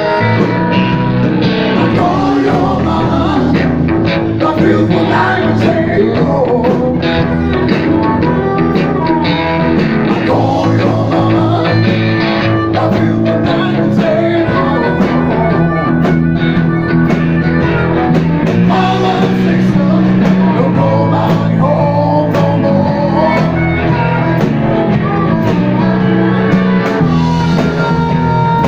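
Live blues-rock band playing loudly: electric guitar, drums and a singing voice, with a harmonica played into a microphone.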